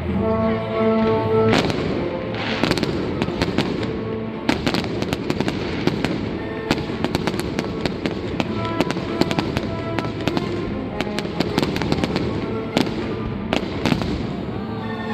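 Fireworks display: many sharp bangs and crackles in quick succession, with music playing along, the tune clearest at the start and near the end.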